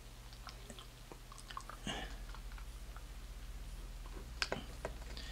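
Dark ale being poured slowly from a bottle into a glass, heard as faint fizzing and scattered small clicks and pops of the foam head.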